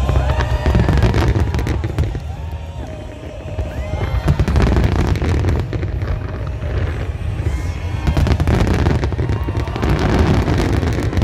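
Aerial fireworks bursting in rapid succession: a dense crackle of glittering star shells over continuous low booms, easing briefly around three seconds in and then building again.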